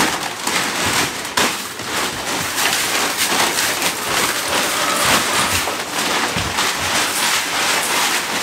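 Loose hay rustling and crackling as it is tossed and spread across the floor: a dense, steady crackle with scattered louder rustles.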